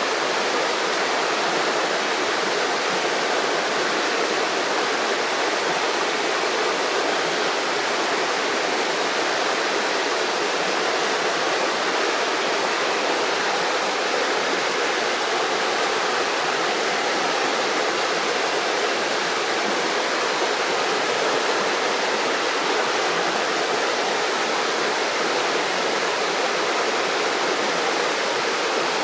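River water flowing and gurgling over stones, a steady, even rushing.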